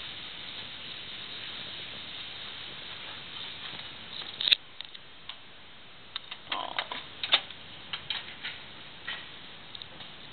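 Steady outdoor hiss that cuts off with a sharp click about four and a half seconds in as a door shuts, followed by scattered light clicks and knocks of footsteps and handling indoors.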